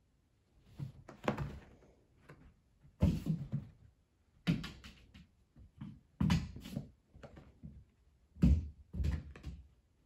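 Two cats pouncing and leaping at a wall and landing on carpet: irregular thumps and scuffles in about five clusters with short quiet gaps.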